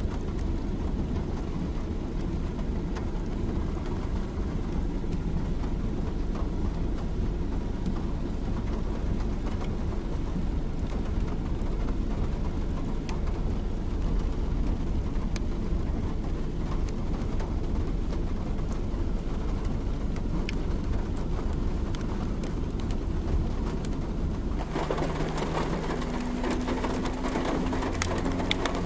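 Rain falling steadily, under a low rumble. About 25 seconds in the rain sound turns brighter and closer, with a faint steady hum underneath.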